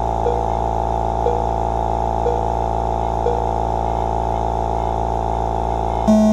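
RC race timing system's start sequence over the PA: four short beeps a second apart, then a pause, then a loud long start tone near the end, all over a steady hum.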